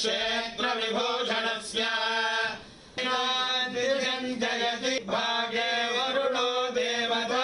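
Vedic pandits chanting Sanskrit mantras in male voices as a Vedic blessing. The recitation is steady and continuous, with a short breath pause a little before the middle.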